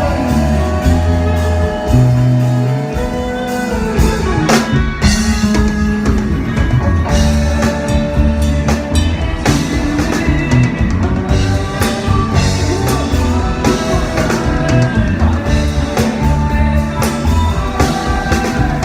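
Isan phin, the Thai plucked lute, playing a busy instrumental solo melody over a band backing of drum kit and bass.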